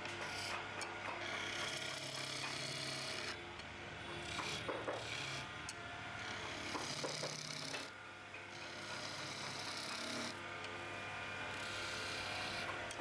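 Hand chisel cutting a spinning oak spindle on a wood lathe: a continuous scraping hiss of shavings coming off, which breaks off briefly several times, over a steady low motor hum.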